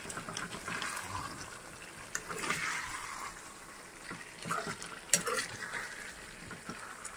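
Metal ladle stirring a thick, simmering chicken liver curry in a metal pan: wet stirring sounds, with sharp clicks of the ladle against the pan about two and five seconds in.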